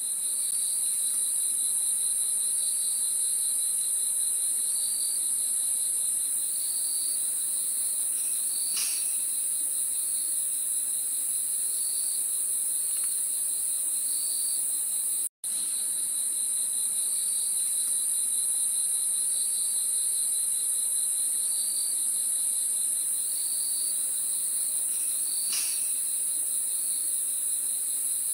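Crickets sound effect: a steady high insect trill with regular chirps. It cuts out for an instant about halfway through and the same recording starts over.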